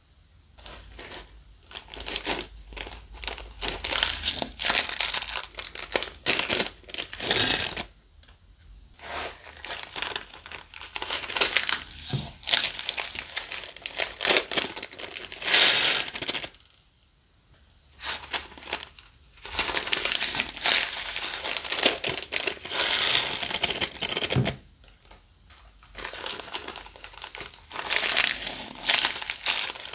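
Close crinkling and crackling from hands working slime-making materials (plastic glue bags, foam clay and slime), in long stretches broken by three short pauses.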